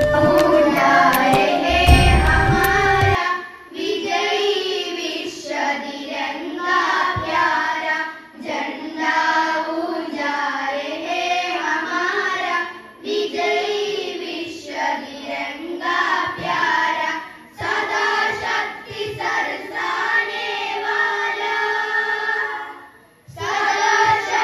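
A group of voices singing a song in chorus, after a short passage of backing music with a beat in the first three seconds.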